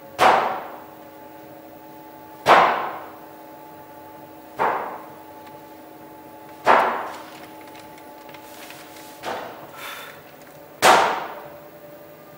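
Sharp metallic clangs, each ringing out and fading over about a second. Five loud strikes come roughly every two seconds, with two softer ones between the last two, over a steady hum of several held tones.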